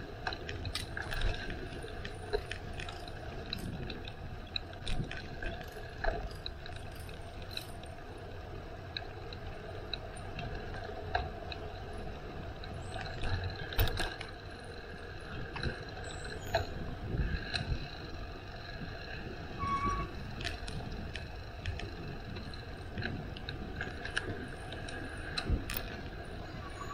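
Bicycle in motion: a steady rolling rumble and hum, broken by frequent small rattles and clicks.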